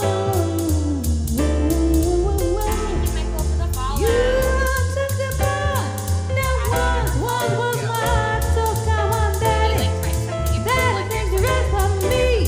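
A song with a female singing voice over a band with a steady drum beat, in a swing or soul style.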